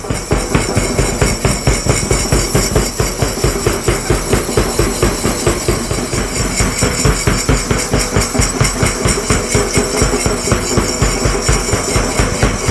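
Loud, fast, even drumbeat, about three to four hits a second, over a steady sustained backing: percussion-driven music for a mass drill display.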